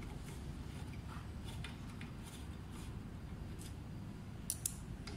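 Light metallic clicks and ticks of a screwdriver and small fasteners being worked while fitting a scooter's rear fender bracket, scattered and faint, with two sharper clicks about four and a half seconds in. A steady low rumble runs underneath.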